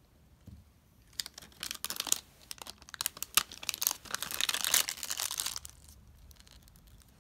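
Crinkling and rustling with many sharp little clicks, from the handling of a small plastic doll and its clothes. It starts about a second in and dies away near the end.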